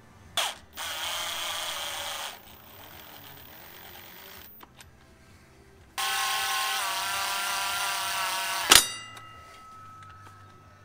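Cordless ratchet running ARP flex plate bolts down into the crankshaft: a short run early on, then a longer, louder run about six seconds in whose whine sags slightly as the bolt tightens. It ends in a sharp clack and a short metallic ring.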